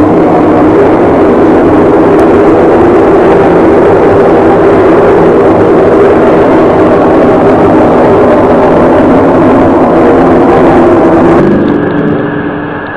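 A loud, steady, droning hum with many overtones, one of the unexplained 'sky trumpet' sounds heard from the sky. About eleven and a half seconds in it cuts abruptly to a quieter, thinner-sounding recording with a steady hum.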